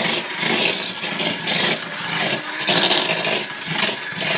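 Electric hand mixer running, its beaters churning and scraping through butter and sugar in a bowl while creaming them together, with a rasping noise that swells and fades unevenly. Like trying to drill wood.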